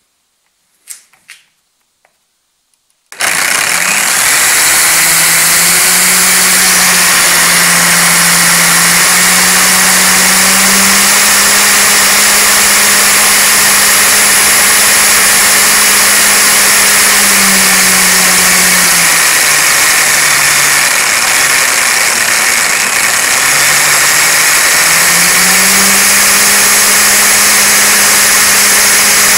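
Electric motor being spun up as a test generator: after a couple of clicks it starts abruptly and runs with a loud whir and a steady hum. The hum drops in pitch for a few seconds past the middle, then comes back up.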